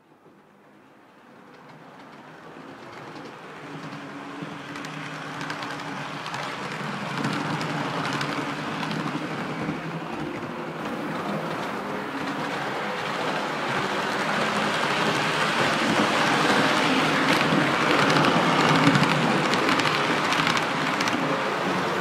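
Model railway train running along the track towards the microphone: a steady rolling noise of wheels on rails that grows gradually louder as it approaches.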